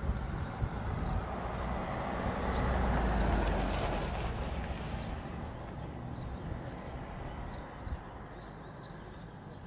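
Short high bird chirps repeating about once a second over a steady outdoor rumble. A rush of noise swells up in the first few seconds and fades away by the middle.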